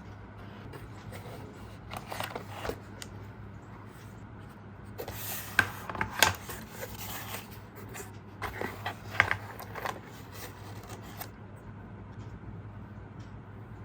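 Close handling noises: rubbing and scraping with sharp clicks, in three short bursts over a low steady hum.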